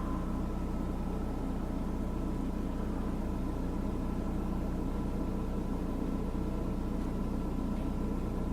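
A steady, unchanging low hum like a running vehicle engine, with two faint constant high tones above it.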